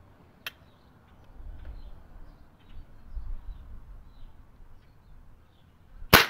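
Quiet outdoor background, then near the end a single sharp, loud shot from a Gamo break-barrel spring-piston air rifle firing a .177 Crosman Premier pointed pellet at about 850 fps.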